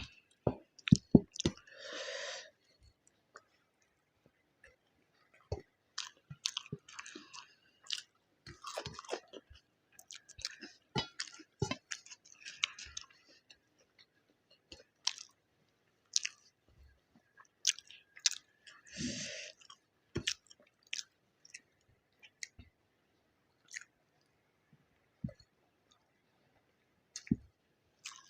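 Close-miked eating sounds of a person eating egg biryani: chewing, wet lip smacks and sharp mouth clicks, coming in irregular bursts with quiet gaps. Twice, about two seconds in and near the middle, a longer noisy mouth sound.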